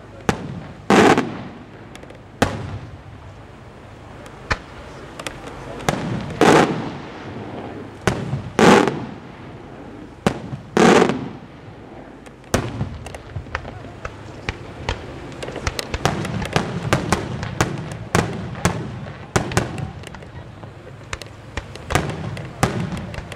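Aerial firework shells bursting overhead. First come single loud booms every couple of seconds, each trailing off in an echo. About halfway through, a rapid string of many sharp bangs follows as shells burst in quick succession.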